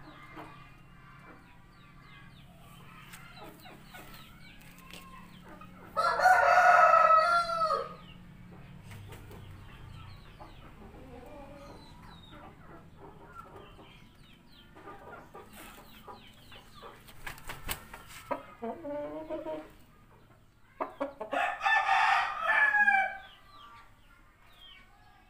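Rooster crowing twice, each crow about two seconds long, one about six seconds in and one near the end, with quieter clucking calls in between.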